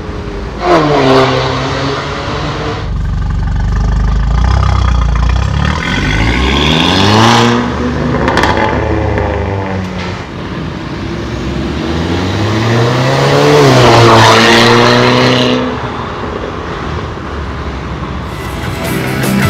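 Mercedes-Benz A180 turbo with a full stainless-steel exhaust system, accelerating hard on the road. The engine note climbs in pitch and falls back about three times as it pulls through the gears.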